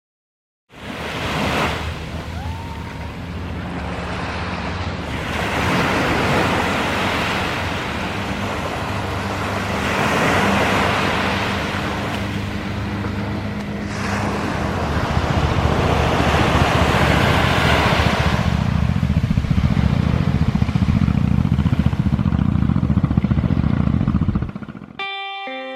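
A yacht's diesel engine running steadily under way, with a loud rush of wind and water over it that swells and fades several times. It cuts off suddenly near the end.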